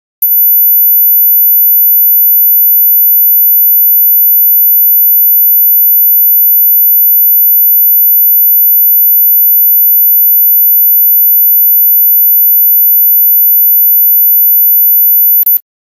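A single steady, very high-pitched electronic sine tone, loud and unchanging, switching on abruptly just after the start and cutting off near the end.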